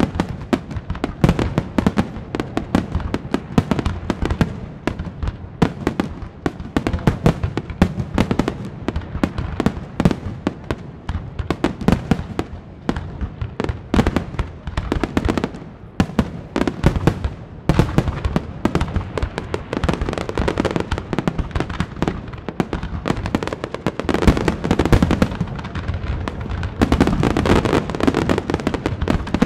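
Fireworks display: many aerial shells bursting in quick succession, a continuous run of bangs and crackle that grows denser near the end.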